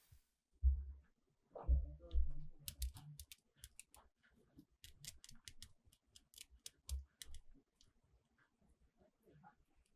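Plastic toy parts and packaging handled on a table: a few dull knocks, then a run of quick, crisp clicks and snips lasting several seconds.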